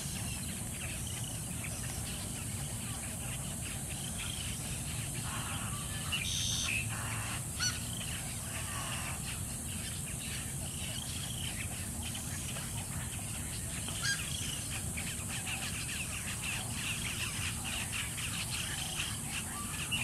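A roost of wading birds, mostly white ibises, calling: repeated short calls, sparse at first and coming thick and fast in the last third. Behind them runs a steady high hiss, and two sharp clicks stand out, one near the middle and one about two thirds through.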